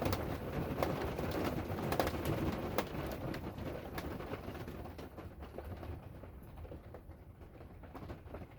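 Rain and scattered hailstones striking, with sharp taps over a steady patter, easing off and growing quieter over the last few seconds as the hailstorm lets up.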